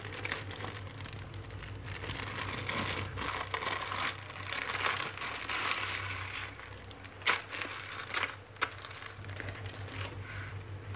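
Clear plastic bag crinkling as it is opened and pulled off a coil of PVC-insulated wire, with a few sharp clicks a little past halfway, over a steady low hum.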